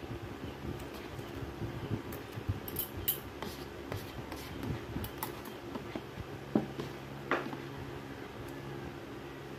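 Metal spoon and fork clicking and scraping inside an instant noodle cup, with eating mouth sounds, as a run of short sharp clicks; the two loudest come about six and a half and seven seconds in. A steady low hum lies under it all.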